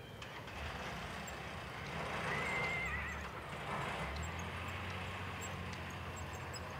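A horse whinnying once, a quavering call that starts about two seconds in and lasts a second or so, over a steady low rumble.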